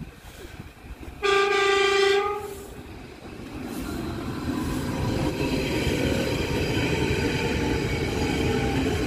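Berlin S-Bahn electric train sounding its horn in one blast of about a second, then approaching and running past with a rising, then steady, rumble of wheels on rails and a thin whine.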